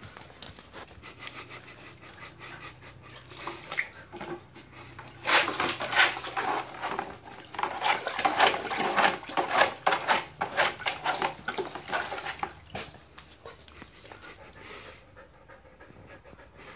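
Siberian husky panting quickly, with a much louder stretch of rapid strokes in the middle.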